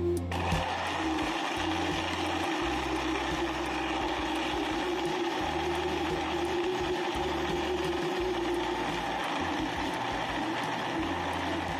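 Countertop blender switched on about a third of a second in, its motor running steadily as it churns ice and fruit into a slush.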